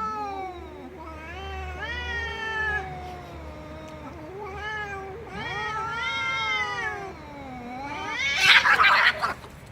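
A domestic cat yowling in a series of long, drawn-out meows that rise and fall in pitch, some short and some over a second long. Near the end comes a loud, harsh, noisy burst.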